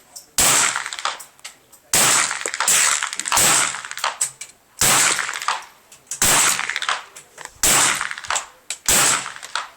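Heckler & Koch 416 .22lr rifle firing single shots in a steady, unhurried string, roughly one every one to one and a half seconds. Each sharp report is followed by a short ringing echo.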